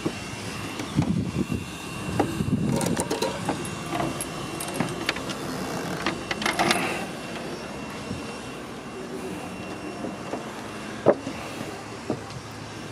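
Clicks and knocks of a small plastic deck hatch door being opened by hand, most of them about six to seven seconds in, over a steady low hum.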